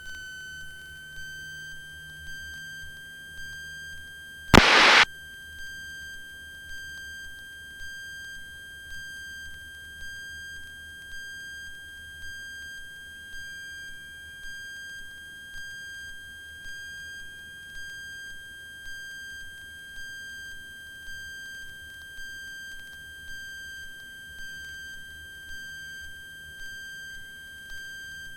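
A steady, high-pitched electronic tone with faint overtones, pulsing slightly in loudness about one and a half times a second. A short burst of noise cuts in about four and a half seconds in.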